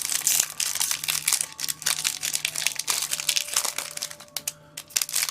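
Foil booster pack wrapper crinkling as it is handled and opened, a dense run of crackles that thins out near the end.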